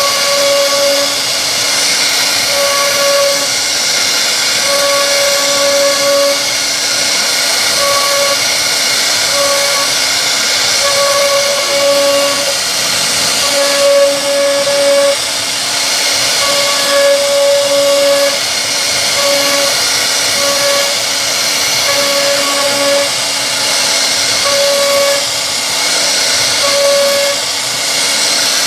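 CNC wood router running while carving a solid-wood door panel: a steady high-pitched hiss, with a whine at one fixed pitch that keeps cutting in and out at uneven lengths.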